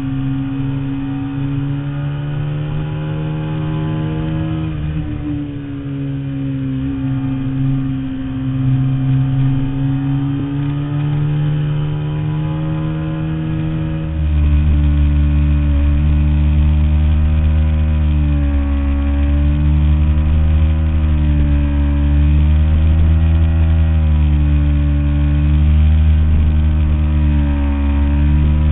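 2005 Ducati 749S L-twin engine running through a full Termignoni exhaust while riding, its pitch rising and falling with the throttle. About halfway through it becomes louder, with a heavier low rumble.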